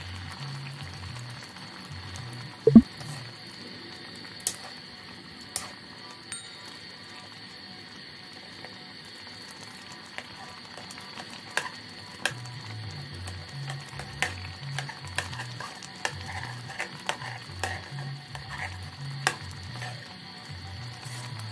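A metal ladle stirring noodle soup in a steel wok, clicking and scraping against the pan, with the clicks coming thick and fast in the second half. One loud knock about three seconds in.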